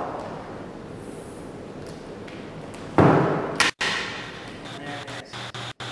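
Metal knock from the magnetic core drill being handled on the table: one loud thud about three seconds in that rings briefly, then a sharp click, with the sound cutting in and out near the end.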